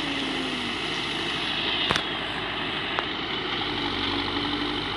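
Terex 740 backhoe loader's diesel engine running steadily, with a faint wavering whine and two sharp clicks about two and three seconds in.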